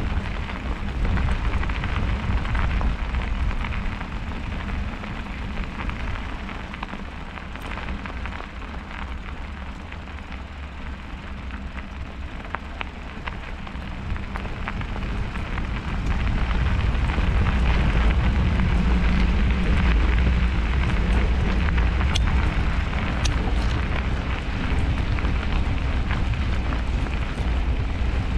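Riding noise from a bicycle in snow: wind rumbling on the microphone over a steady hiss of tyres on the snowy road, growing louder a little past halfway.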